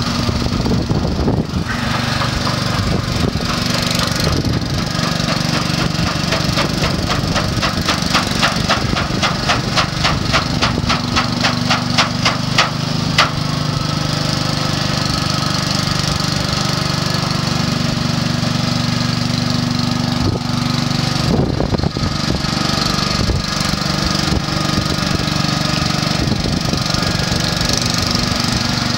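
Small petrol engine running steadily under a homemade paddle wheel that churns and splashes the water. In the middle stretch the paddles slap the water in a regular beat, about three strokes a second.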